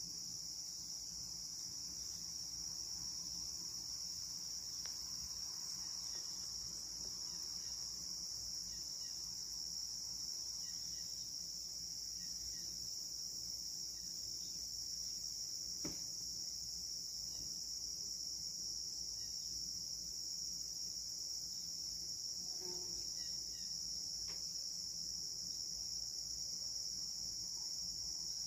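Evening chorus of crickets: a steady, high-pitched, continuous trilling that does not let up.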